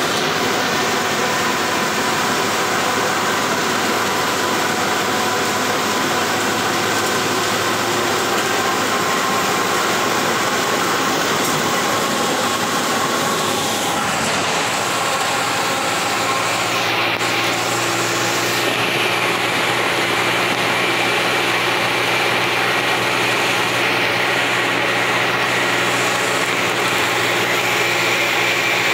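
Cabin noise of a Volksbus 17-230 OD diesel city bus at cruising speed: a steady engine drone under the hiss of tyres on a wet road.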